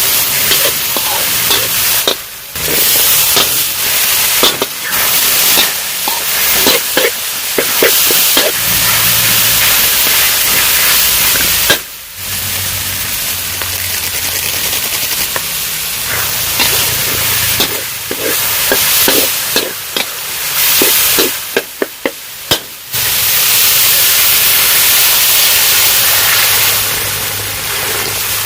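Food sizzling in a hot pan, a steady loud hiss with occasional clicks and scraping, broken off abruptly several times.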